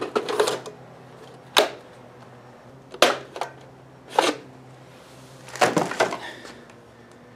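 Handling noise from a Kobalt 40V cordless string trimmer: the plastic battery pack rattling as it slides out of its socket, then a handful of separate clicks and clunks as the trimmer is moved about. The motor is not running.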